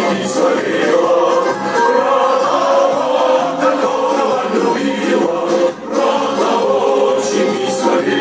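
A choir singing, several voices together in a continuous song.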